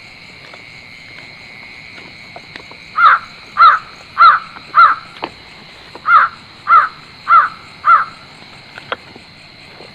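An animal calling at night: two series of four short calls, each call about half a second apart, over a steady high-pitched insect chorus.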